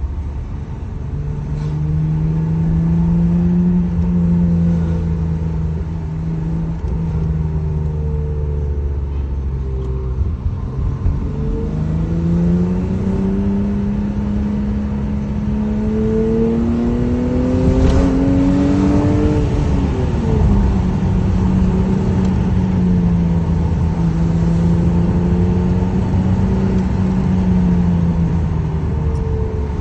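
BMW E34 525i's stock M20B25 2.5-litre inline-six running under way: a steady cruise, then after a short break about ten seconds in it pulls with rising pitch for several seconds, drops off sharply about twenty seconds in, and settles back into a steady cruise.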